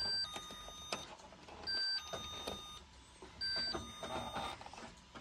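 Toy dollhouse's battery-powered doorbell, pressed, playing a two-note electronic ding-dong chime three times, about a second and a half apart, with a click of the button at the start.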